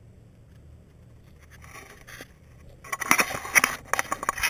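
Rustling and scraping close to the microphone, starting about three seconds in as a run of loud crackles and scrapes after a quiet start.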